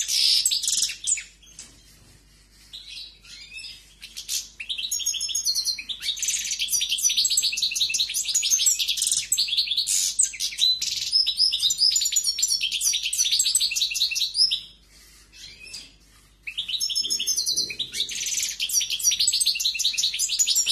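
European goldfinch singing: long runs of rapid, high twittering and trills, broken by two pauses of about two seconds, one early and one about two-thirds of the way through.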